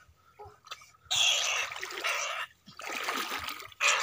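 Shallow water splashing and sloshing as hands and a net trap are worked through it, in bursts starting about a second in and again near the end, the last the loudest.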